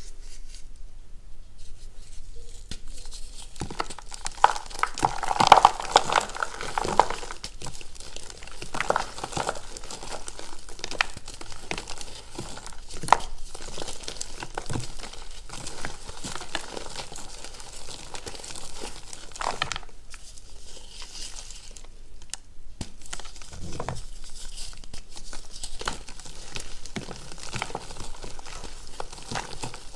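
Reformed gym chalk block crunching and crumbling as it is squeezed and broken apart in bare hands, with crumbs and powder sifting down. Dense crackling starts about three seconds in and is loudest soon after.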